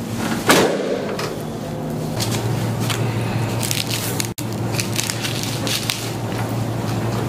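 Chiropractic adjustment: one loud sharp crack or thump about half a second in, then scattered smaller clicks and cracks over a steady low hum that starts about two seconds in.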